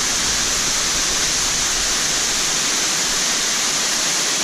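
Small waterfall pouring between boulders into a shallow pool: a steady, hissing rush of falling water.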